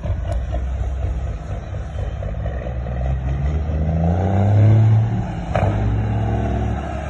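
Dump truck's Cummins N14 diesel engine pulling under throttle, its pitch climbing for about two seconds before it holds steady at its loudest.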